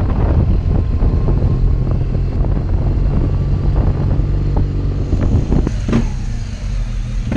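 BMW R1200GS flat-twin (boxer) motorcycle engine running while the bike is ridden at low speed. About six seconds in there are a couple of sharp knocks, and then the engine runs steadily, as at idle.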